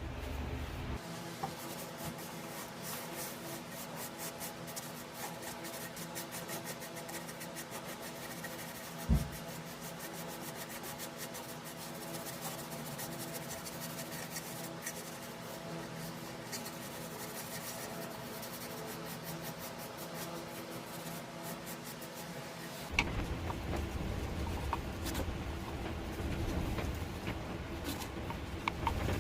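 Wood being sanded or rubbed: a fast, scratchy rasp over a steady hum, with a single knock about nine seconds in. Near the end it changes to a louder, deeper rubbing.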